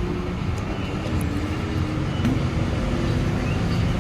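Steady rumble of road traffic, with a few light clicks.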